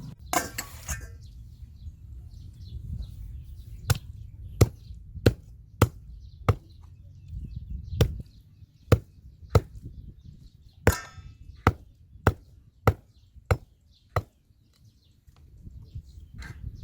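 A knife chopping on a cutting board in steady single strokes, about one and a half a second, with a short clatter near the start and another a little past the middle.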